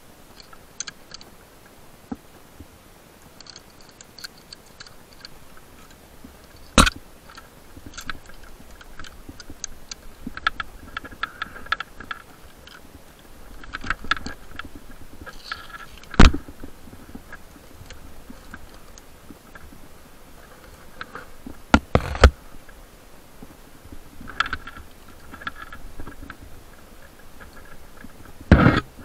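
Climbing rope and metal climbing hardware being handled: a few sharp knocks spread out, two of them close together, with short spells of scraping and rustling between.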